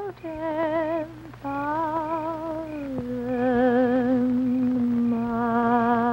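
A woman humming a slow, mournful tune with wide vibrato, holding long notes. She takes a short break a little after a second in. About three seconds in she glides down to a low note and holds it.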